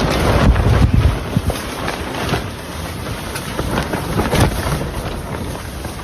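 Strong wind buffeting the microphone, with deep rumbling gusts that are heaviest in the first second and ease off after. A few light knocks sound through it.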